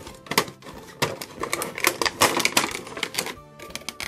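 Clear plastic packaging crinkling and cardboard rustling as toy parts are pulled from the box: a dense run of sharp crackles, with music playing underneath.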